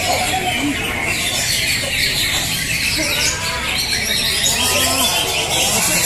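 Many caged cucak hijau (green leafbirds) singing at once in a song competition, a constant mass of overlapping chirps and whistles. Crowd voices run under the birdsong.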